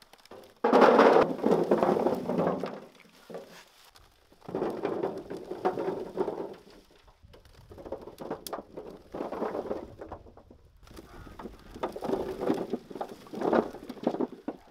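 Small potatoes tumbling out of a wicker basket into a metal wheelbarrow tray, rattling against the metal and each other. They come in four pours, the loudest about a second in.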